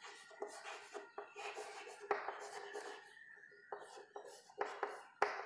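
Chalk writing on a chalkboard: faint, irregular scratching and tapping strokes as a word is written.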